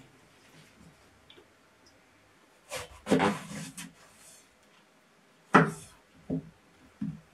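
Kitchen knife cutting an eggplant on a wooden cutting board. There is a longer slicing stroke a bit under three seconds in, then a sharp chop and two softer knocks of the blade on the board near the end.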